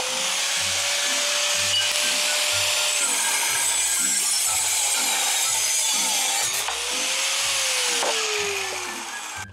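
Angle grinder with an abrasive cut-off wheel cutting through a steel bicycle front fork tube: a harsh grinding hiss over the motor's whine. The whine drops away about three seconds in, rises again later, and winds down near the end.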